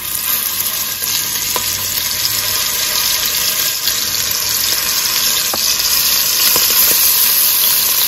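Seasoned beef short ribs sizzling in hot canola oil in an enamelled Dutch oven as they are laid in with metal tongs; a steady sizzle that starts as the first rib goes in and grows a little as more are added, with a few faint clicks.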